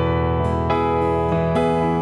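Digital piano playing slow, sustained chords in an instrumental passage between sung lines, with low held notes underneath; the chord changes twice.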